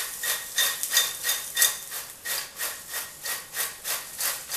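Popped popcorn being tossed in a large glass bowl: a rhythmic rustling swish of the kernels sliding against the glass, about three times a second.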